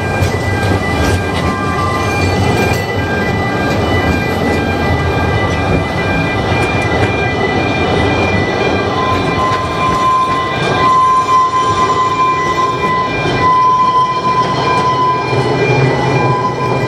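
Narrow-gauge train running along the track with a continuous rumble, and a steady high-pitched tone that sets in about halfway through and holds to the end.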